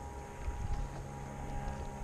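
Low rumble of wind on the microphone and water against a plastic kayak hull, with a faint steady high hum underneath and a few soft ticks.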